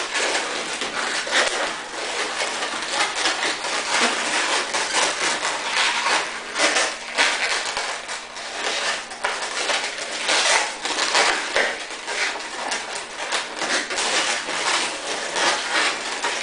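Latex modelling balloons rubbing and squeaking against each other and the fingers as they are twisted and wrapped together by hand, a close, continuous run of short crackling strokes.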